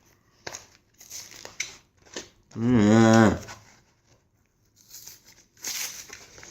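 Stiff plastic blister packaging crackling and crinkling in short, irregular bursts as it is cut and wrenched open.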